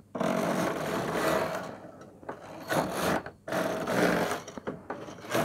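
Brother KH-891 punchcard knitting machine's main carriage sliding across the needle bed, knitting rows: a rasping whirr with a faint steady hum, one long pass of almost two seconds, then several shorter runs with brief breaks between them.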